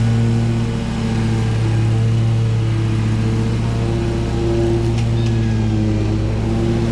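Background music: a steady low drone under a slow melody of held notes.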